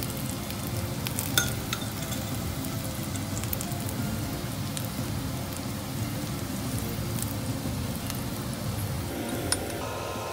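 A large grated-potato pancake sizzling as it fries in a pan, while a metal spoon spreads chicken and onion filling over it, with a few short clicks of the spoon against the pan.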